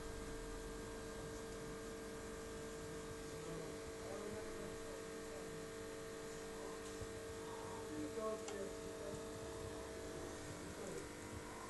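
Steady electrical hum of aquarium equipment, several fixed tones held without change.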